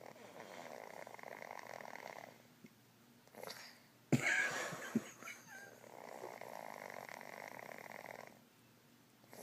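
Chihuahua snoring in its sleep: two long, rasping snoring breaths several seconds apart, with a shorter, louder breath between them about four seconds in.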